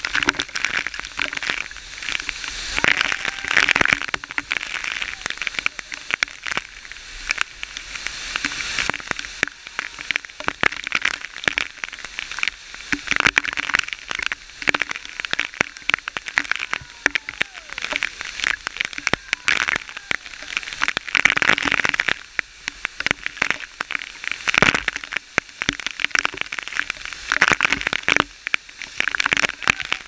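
Dense, irregular crackling and clicking on the camera microphone over a steady hiss, louder in several clusters.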